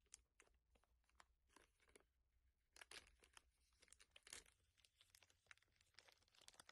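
Plastic snack wrapper being torn open by hand: faint crinkling and tearing, a string of sharp crackles that grows busier from about three seconds in.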